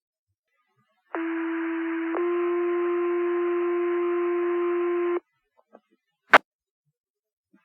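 Two-tone sequential pager alert tones sent over a fire dispatch radio channel: a steady tone held about a second, then a slightly higher tone held about three seconds, the signal that sets off the volunteer firefighters' pagers. A sharp radio click follows about a second after the tones stop.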